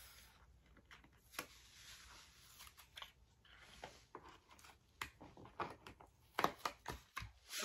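Faint scattered clicks and crackles of a Cricut StrongGrip plastic cutting mat being flexed upside down to peel thin cut walnut wood veneer letters off its sticky surface, with a small tool picking at the letters. The clicks come more often near the end.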